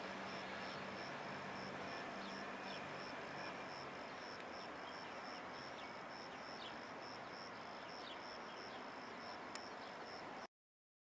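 Distant freight train rolling past, its low hum fading over the first few seconds as the last tank containers go into the tunnel, under a steady hiss and a regular high chirp about three times a second. The sound cuts off suddenly near the end.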